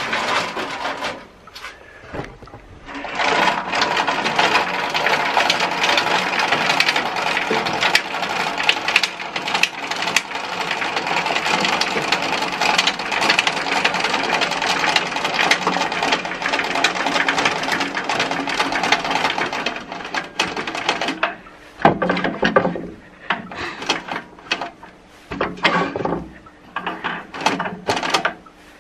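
The handwheel of a Güde GADH 200 planer-thicknesser being cranked fast, its threaded spindle winding the thicknessing table up with a steady, fast mechanical clatter. Partway through the long run gives way to several short spurts of cranking.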